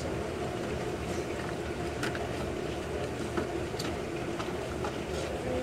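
Saucepan of macaroni and cheese cooking on an electric stove, with light clicks and pops scattered over a steady kitchen hum.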